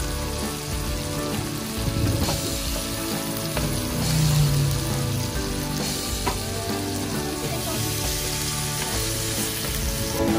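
Marinated beef and ham slices sizzling steadily in melted butter on an electric grill plate.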